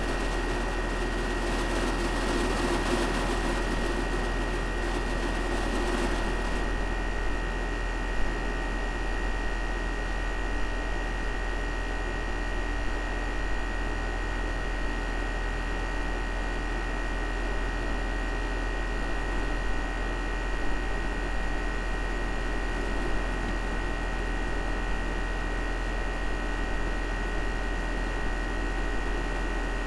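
Carrier outdoor air-conditioning condenser unit running steadily: a low hum with a thin steady whine over the fan's air rush. About six or seven seconds in, a layer of hiss drops away and the unit runs on evenly.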